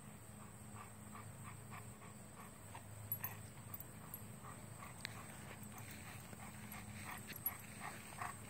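Dog whimpering in short, repeated cries, about three a second, growing louder near the end.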